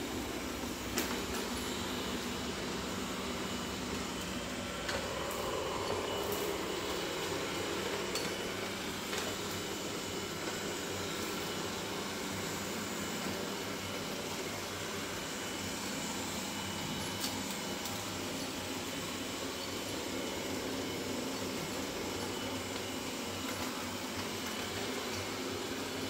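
Robot vacuum running with a steady whirring hum, with a few sharp clicks and knocks now and then.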